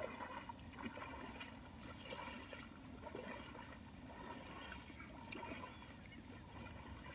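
Faint sloshing and trickling of shallow water stirred by someone wading through a flooded, weedy field.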